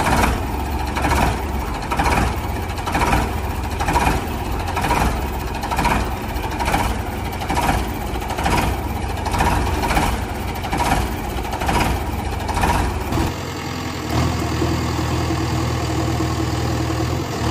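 Heavy vehicle engine running, pulsing about once a second; about thirteen seconds in, a different, steadier engine hum takes over.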